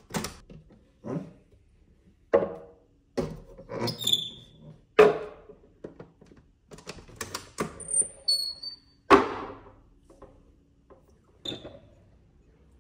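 A string of separate knocks and thuds at irregular intervals, with two short high squeaks about four and eight seconds in.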